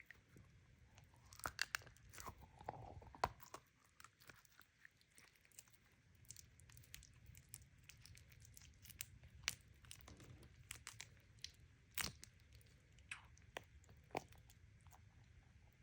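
Hands working crinkly packaging: faint, irregular crackles and clicks, with a few sharper snaps about a second and a half, three seconds and twelve seconds in.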